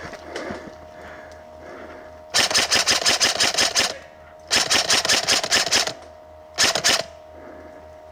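Lancer Tactical M4 Evo electric airsoft rifle firing three full-auto bursts of rapid clicks: two of about a second and a half each, then a short burst near the end.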